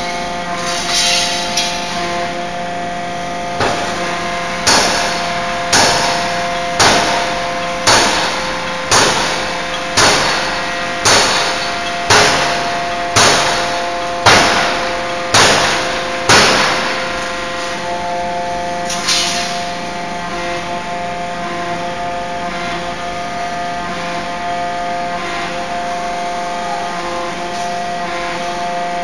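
Open-die forging hammer striking a hot workpiece, a run of about thirteen heavy blows at roughly one a second, each ringing briefly, over a steady machine hum. The blows stop about two-thirds of the way through and only the hum continues.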